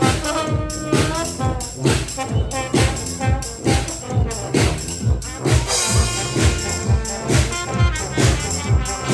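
Live oompah party band playing an upbeat number, with pitched melody lines over a steady beat about twice a second.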